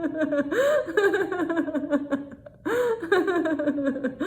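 A woman laughing in long peals that slide down in pitch, as a laughter-yoga exercise, with a short pause about two and a half seconds in before the laughing starts again.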